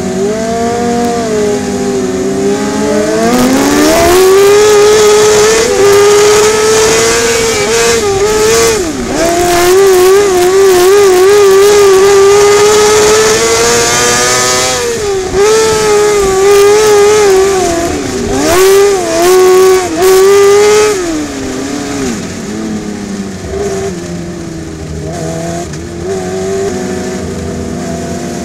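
Onboard sound of a winged 600cc micro sprint car's motorcycle engine. The revs climb about three seconds in and stay high with a wavering pitch, dropping sharply twice for a moment, then fall back to lower, steady running for the last several seconds.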